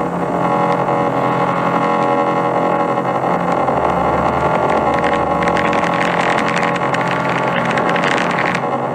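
A loud, steady, engine-like drone made of many held tones. A hiss builds over it from about five seconds in and cuts off suddenly near the end.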